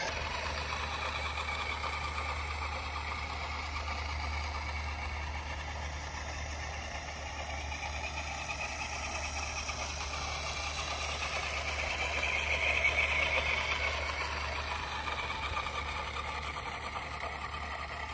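Steady engine-like vehicle noise over a low hum, swelling briefly louder past the middle.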